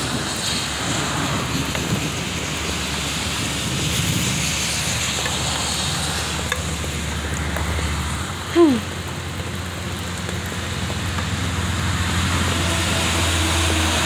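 Steady heavy rain mixed with tyre spray and engines of traffic passing on a wet road, growing louder near the end. About two-thirds of the way through comes one short, sharp squeak that falls in pitch.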